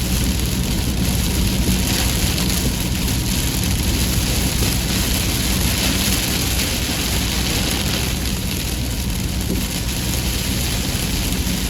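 Heavy rain pouring down steadily, with a low steady hum underneath.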